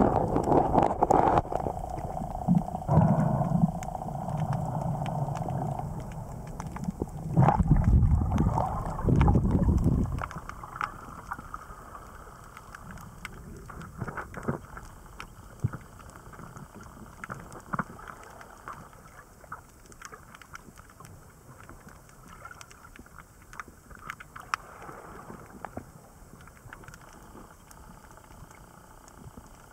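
Muffled underwater sound picked up by a camera underwater: loud low rumbling water noise for about the first ten seconds, then much quieter, with scattered faint clicks and crackles.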